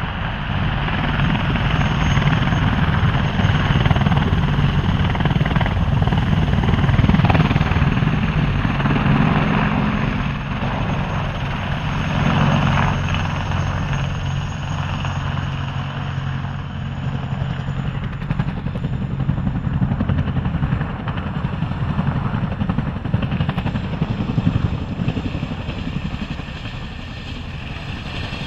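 AH-64 Apache attack helicopter flying low past, its rotor beating rapidly over the engine noise. It swells loudest twice in the first half, then eases off. Near the end the beat of a tandem-rotor Chinook helicopter passing close takes over.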